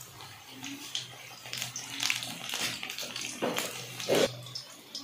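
Chicken pakoras deep-frying in hot ghee in a wok: a steady bubbling sizzle with many small crackling pops, and a couple of louder knocks about three and a half and four seconds in.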